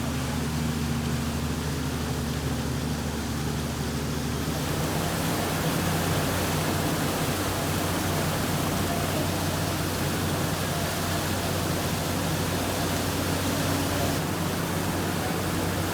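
A vehicle engine running steadily, a low hum under a constant rushing noise that grows louder about four seconds in.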